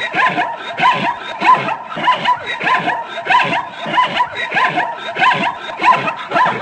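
Zebra calling: a long run of short, yelping barks, two or three a second.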